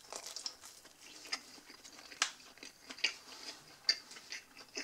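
A person biting into and chewing a slice of soft-crusted pan pizza close to the microphone: irregular small wet mouth clicks and smacks.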